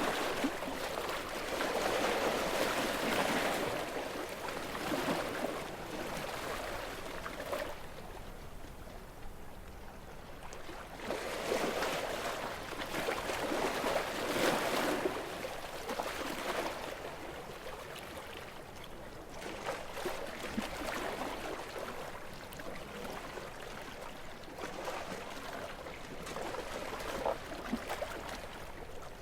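Gentle waves on a calm sea, washing in and ebbing away. Two larger surges come a second or so in and about halfway through, followed by smaller, softer washes.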